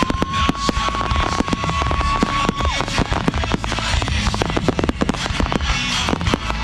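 Fireworks display at full intensity: many shells and low-level effects bursting in quick succession, a dense run of bangs and crackle with no break. A steady high tone sounds over the bursts for the first few seconds, then stops.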